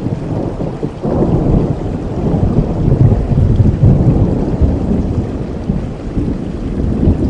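A thunder rumble over steady rain. The rumble swells about a second in, is loudest in the middle and slowly fades toward the end.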